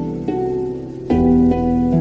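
Background music with plucked, harp-like notes, changing chord about a second in.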